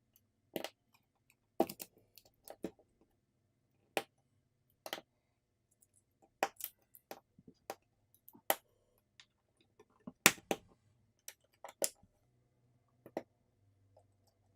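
A dozen or so sharp, irregularly spaced clicks and taps of small parts and tools as a Samsung Galaxy S24 FE smartphone is reassembled: components, brackets and screws being pressed and set into place.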